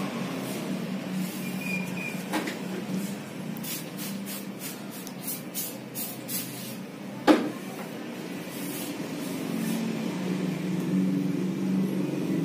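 Hands working a head massage: a quick run of light taps, about three a second, over a steady low hum, then one sharp crack about seven seconds in, the loudest sound here.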